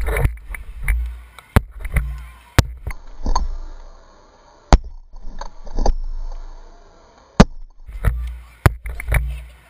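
A camera mounted on a juggling club: air rushing over the microphone in swelling waves as the club spins through the air, broken by sharp knocks as the club is caught in the hand, about a dozen across the few seconds with a cluster near the end.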